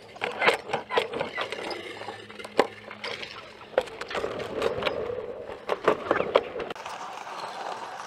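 A summer toboggan sled clattering in its stainless-steel trough as it is towed uphill. Irregular sharp knocks and rattles sound over a steady rolling rumble.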